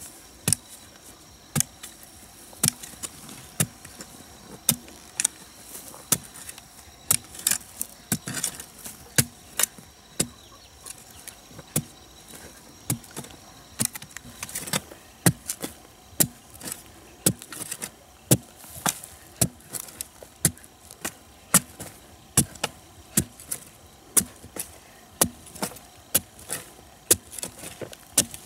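A hand tool striking over and over, about one sharp knock a second, sometimes two in quick succession, as in digging or chopping work.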